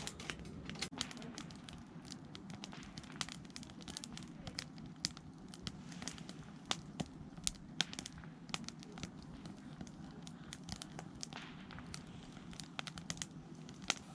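Wood campfire crackling, with irregular sharp pops and snaps of burning wood.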